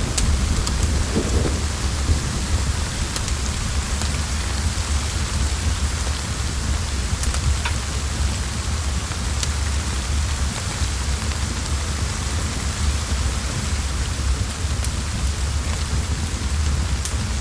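Steady rain with a low, continuous rumble underneath and a few sharp ticks or pops scattered through it.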